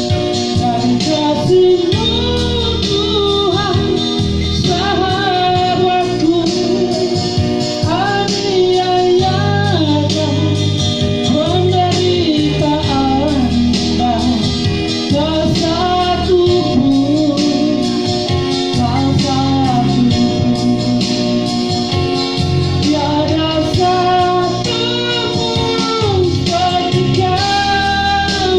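A song: a singing voice with guitar accompaniment.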